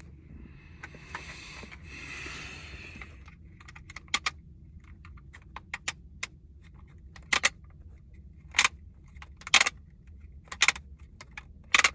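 Rustling as wires are handled, then a run of sharp, irregular clicks and snaps. These grow louder and come about once a second toward the end.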